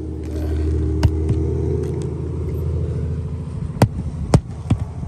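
Low, steady engine rumble, with a few sharp knocks on top: one about a second in and two louder ones near the end.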